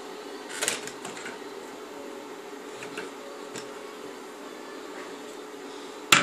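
Plastic clicks and knocks from the instrument cluster's casing being handled and unclipped: a few light ones about half a second in and around three seconds, and a louder double click near the end, over a steady background hum.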